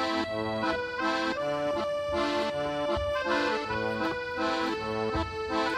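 Background music: an accordion playing a slow, sentimental tune, with held melody notes over a steady rhythmic bass-and-chord accompaniment.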